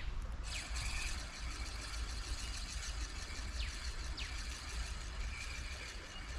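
Spinning reel being wound in, a fine rapid ticking whir that starts about half a second in and eases off near the end. Bird calls give three short descending whistles over a low steady rumble.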